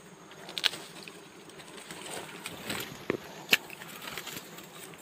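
Dry twigs and leaves rustling and crackling as a small bee comb is cut and pulled out of a bush, with a few sharp snaps or snips, the loudest three about a second in and around three seconds in.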